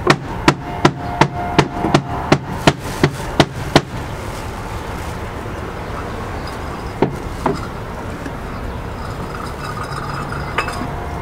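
A rapid, even series of about a dozen sharp knocks, roughly three a second, like hammering, stopping about four seconds in. Then a steady background with a few single knocks.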